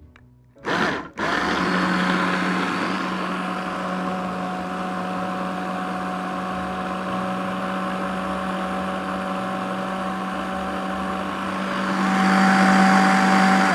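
Hand blender with a chopper bowl attachment pureeing fruit: a brief pulse about a second in, then the motor runs steadily with a constant hum, getting a little louder near the end before it stops.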